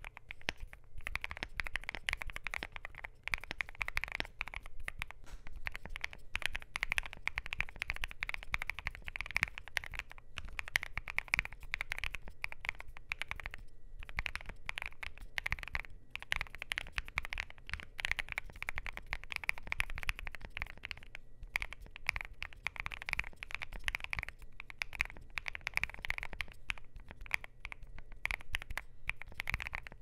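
Steady fast typing on a Luminkey LK65 mechanical keyboard with lubed and filmed Gateron Sylva linear switches, PBT Cherry-profile keycaps and lubed Gateron stabilizers, a continuous run of key clacks. The first part is typed with a polycarbonate plate, and partway through, after a short pause, with an aluminium plate.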